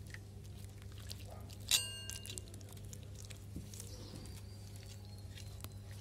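A single bright metallic ring about two seconds in, fading over about half a second, over a steady low hum and faint soft handling ticks.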